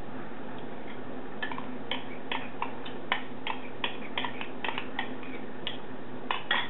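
Metal spoon clinking and scraping against a glass bowl while scooping out beaten yogurt: a quick, irregular run of light ticks, a few a second, starting a little over a second in. A steady low hum runs underneath.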